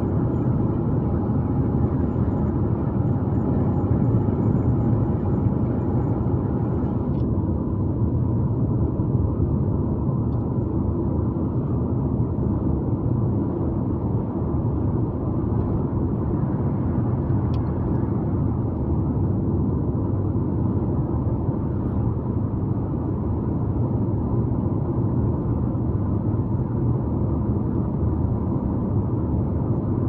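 Steady rumble of a car driving: road and engine noise, even throughout.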